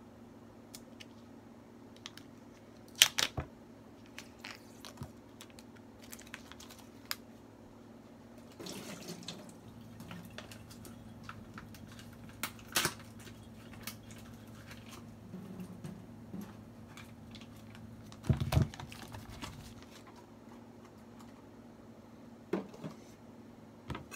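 Kitchen handling sounds of a plastic tofu tray being opened and drained: scattered crinkles and sharp clicks of the peeled plastic film, a short splash of water, and a dull thump about three-quarters of the way in.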